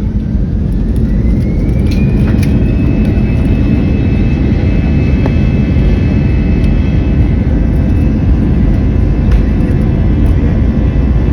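Passenger airliner's jet engines spooling up to takeoff thrust: a whine rises over the first two seconds or so and then holds steady over a loud, continuous rumble, with a few light rattles.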